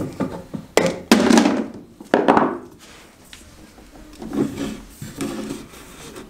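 Knocks and thunks on wood: two sharp ones about a second in, a longer scraping thud just after two seconds, then a few softer knocks near the end.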